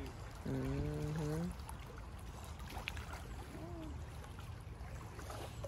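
Steady low rumble of wind across the microphone at the lakeshore. About half a second in, a person's voice holds one level, hummed note for about a second, with another short vocal sound later.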